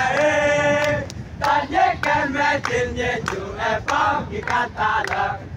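A group of voices chanting together, a long held note at the start and then a run of short sung syllables.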